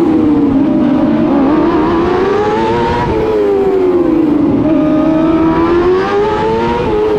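TQ midget race car's engine heard from onboard, its high-pitched note rising and falling in a slow cycle about every three and a half seconds as the driver accelerates and lifts around a tight indoor oval.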